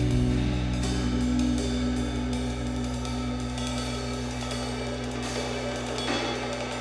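Background music with a drum kit, cymbals and hi-hat, fading out.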